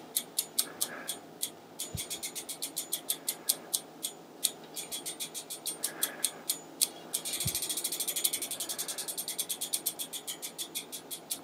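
Hub-motor rear wheel spun by hand, its freewheel pawls clicking steadily at about five or six clicks a second. About seven seconds in the clicks quicken into a fast run lasting a second or two, then slow again.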